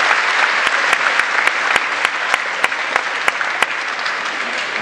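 Audience applauding, a dense steady clapping. Over it, a run of sharp, evenly spaced claps or knocks about three a second stops about three and a half seconds in.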